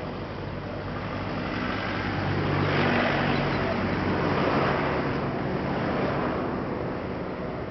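Engine noise from a passing vehicle: a steady low hum with tyre-like rush that swells about three seconds in and eases off towards the end.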